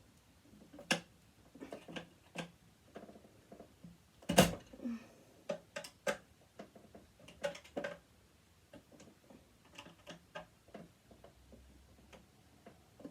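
Scattered clicks and metallic taps of small tools and parts being handled on a sewing machine under dismantling, with one louder clank a little over four seconds in.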